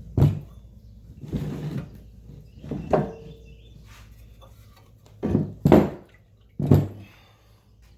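Wooden 2x4 blocks being knocked about and set down, with the trash pump set up on them: a string of knocks and thuds, one with a brief metallic ring about three seconds in, and the three loudest between about five and seven seconds in.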